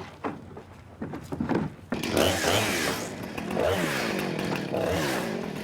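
Chainsaw starting up about two seconds in and revving up and down, after a few sharp knocks.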